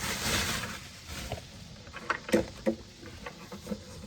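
Packaging rustling for about a second, then scattered light knocks and taps as a tail light is taken out of its box.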